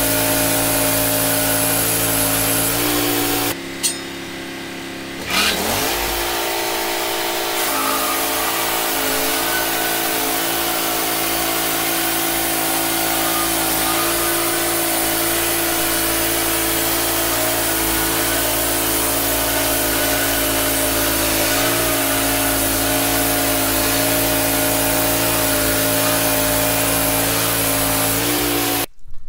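Wood-Mizer LT15 portable band sawmill running, its gas engine held at a steady speed while the band blade saws through a cedar cant. The engine sound drops away briefly about four seconds in, then rises back up to speed, and it cuts off abruptly near the end.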